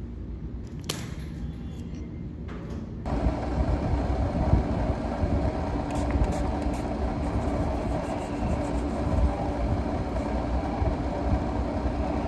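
Quiet background with a single sharp click about a second in, then an abrupt switch to a louder steady low rumble with a constant hum.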